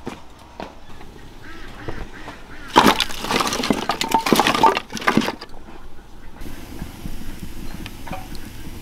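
Split firewood pieces knocking and clattering as they are handled and stacked, with a loud dense run of wooden clatter from about three to five seconds in. A steady hiss takes over near the end.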